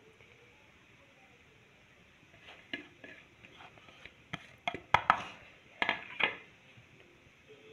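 Kitchen handling noises: a quiet stretch, then a run of separate sharp clicks and knocks, the loudest about five and six seconds in.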